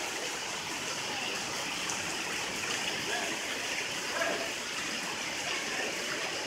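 Heavy rain falling steadily, a continuous even hiss of water.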